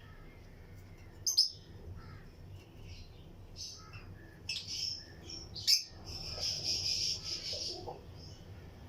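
Lovebirds chirping in a colony cage: scattered sharp, high chirps, two of them loud, and a longer run of chattering from about six to eight seconds in.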